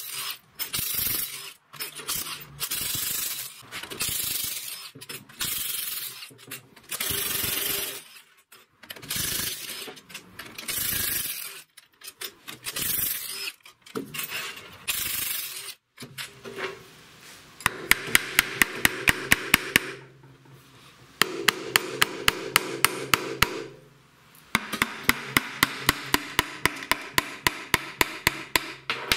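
Cordless impact driver backing out the crankcase-cover bolts of a Briggs & Stratton single-cylinder engine, run in a string of short bursts. About two-thirds of the way in come three longer runs of quick, regular sharp knocks, about six a second, over a steady hum.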